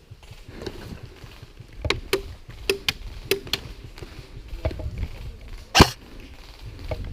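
Airsoft guns firing single shots, heard as sharp cracks, several in quick pairs, then spaced out, with one much louder shot about six seconds in.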